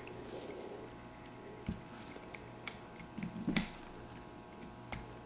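Faint, scattered metal clicks and taps of AR-15 bolt carrier group parts as the cam pin is seated in the bolt and carrier and turned, the loudest cluster about three and a half seconds in.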